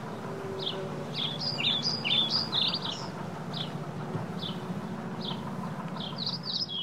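Birds chirping and singing: a short high chirp repeats about once a second, with bursts of quicker warbling song about a second in and near the end. Under it runs a steady low rumble of riding.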